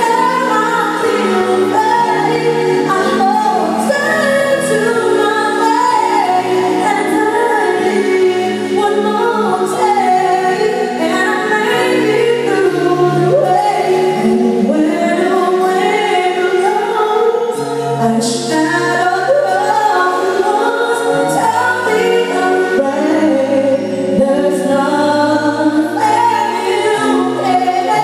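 A live band performing a ballad: a woman sings lead into a microphone over electric guitar, bass, keyboards and drums, heard through the venue's speakers.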